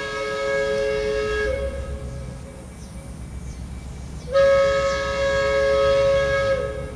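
Locomotive horn sounding two long blasts, each a two-note chord that sags slightly in pitch as it cuts off, with a low rumble underneath from the approaching train.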